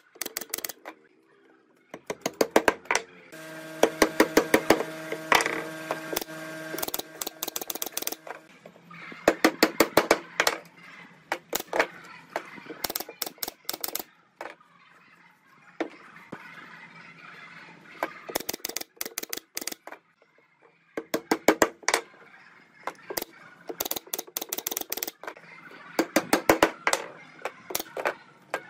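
Pneumatic brad nailer firing in quick runs of shots into wooden strips, several clusters of rapid sharp clicks with short pauses between while the strips are fastened to the panel.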